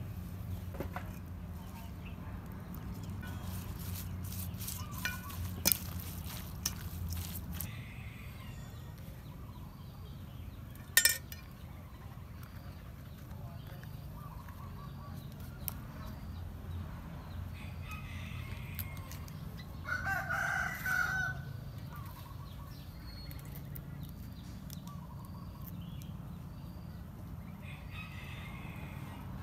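A rooster crows once, about twenty seconds in, a single call lasting a second and a half. Earlier there are a few sharp knocks, the loudest about eleven seconds in, over a low steady rumble.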